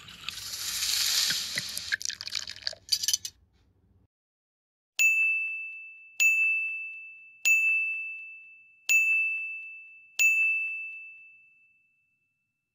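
A rushing hiss for about the first three seconds, then five single bell-like dings about a second and a quarter apart, each ringing out and fading. The dings are an editing sound effect, one for each line of an ingredients list as it appears.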